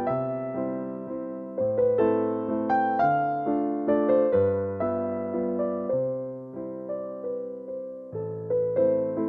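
Background piano music: a gentle electric-piano melody over a slowly changing bass line, each note struck and then fading.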